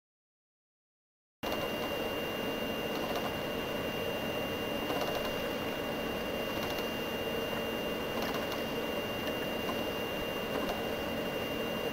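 Total silence for about the first second and a half, then steady room noise with a constant high-pitched electronic whine and a few faint clicks.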